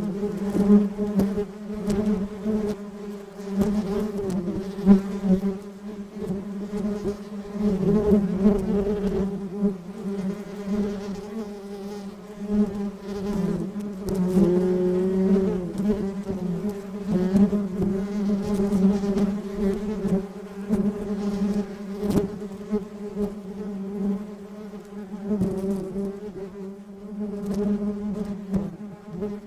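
Honey bees buzzing as they collect pollen: a continuous wing hum that swells and fades in loudness, its pitch wavering briefly about halfway through as a bee passes.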